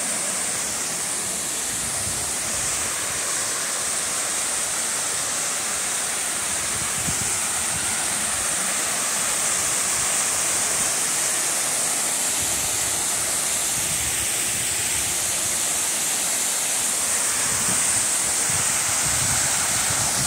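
Waterfalls cascading over rock ledges into plunge pools, a steady rushing of falling water. Gusts of wind buffet the microphone now and then with a low rumble, most around the middle and near the end.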